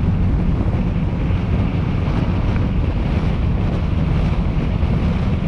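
Steady rushing road and wind noise of a car driving at highway speed, with a strong low rumble.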